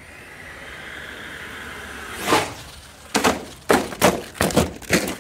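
HPI Savage XL Flux RC monster truck running, then wrecking: a hard impact about two seconds in, followed by a quick string of thuds and knocks as it crashes.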